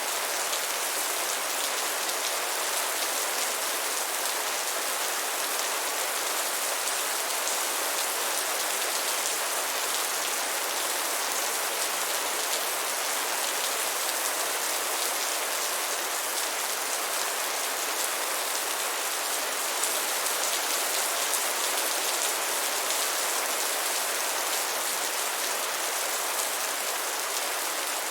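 Steady rain falling, an even hiss of many small drops that stays the same throughout.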